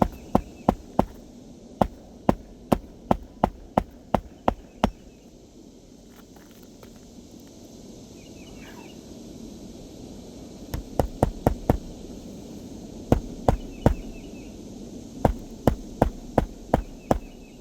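Hammer striking roofing nails in an asphalt shingle, driving them flush: quick runs of sharp strikes, about two to three a second, broken by a pause of several seconds in the middle.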